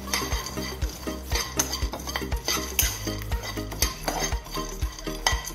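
A spatula scraping and stirring chopped cashews and almonds around a non-stick pan as they fry, in quick repeated strokes. Background music with a steady beat runs underneath.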